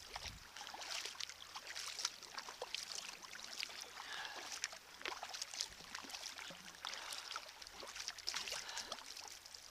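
A torrential downpour of rain and hail striking the sea and the kayak: a steady high hiss of water, dense with irregular sharp ticks of drops and hailstones.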